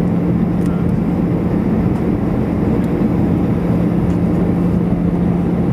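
Steady cabin noise inside an Airbus A319 on its approach: the hum of its underwing jet engines and the rush of air, with a steady low drone.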